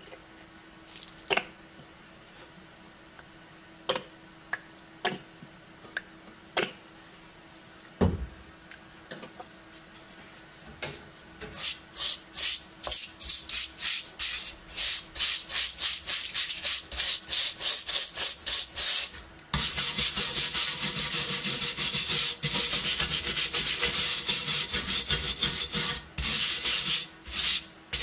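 A green abrasive scouring pad scrubbing the wet, rusty inside of a steel M35 helmet shell in quick back-and-forth strokes, about two or three a second. The strokes begin roughly a third of the way in and become almost continuous in the last third. Before that there are scattered clicks and knocks of the helmet being handled, with one loud thump about eight seconds in.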